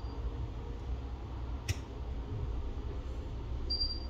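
Low steady rumble of background noise, with one sharp click a little under two seconds in and a short, high, thin tone near the end.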